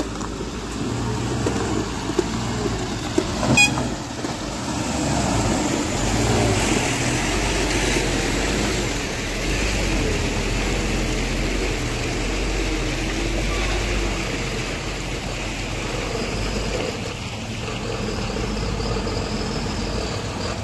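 Diesel engines of heavy goods trucks crawling past at low speed, a steady low rumble that grows louder as a truck comes close, with a brief rattling click about three and a half seconds in.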